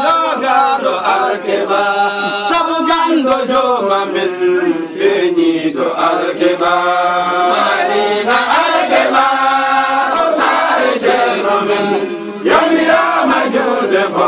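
Men's voices chanting a devotional praise song in Pulaar together, the held notes of the chant running on with short breaks for breath about six and twelve seconds in.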